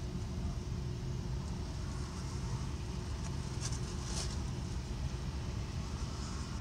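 Steady low rumble of a car engine running at idle, heard from inside the car's cabin, with a couple of brief high clicks near the middle.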